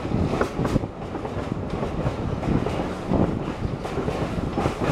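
Train rolling along the track, with a steady rumble and irregular clacks and knocks from the wheels running over the rails.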